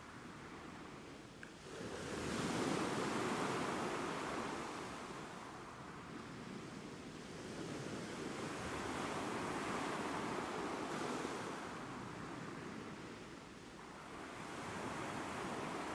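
Ocean surf: waves breaking and washing in, the noise swelling and fading in three slow surges, about two seconds in, around the middle and near the end.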